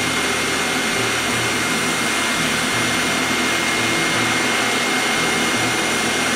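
Yihua 8786D hot air rework station's handpiece blowing steadily onto a circuit board: an even rushing hiss from its fan and air stream, with a faint steady high whine. The hot air is heating the board to desolder small surface-mount transistors.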